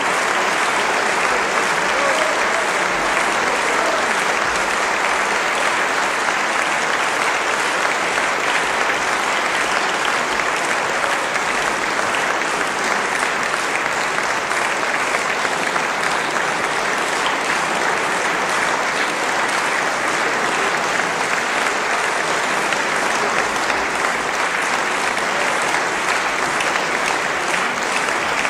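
Concert audience applauding steadily and at length at the end of a live performance.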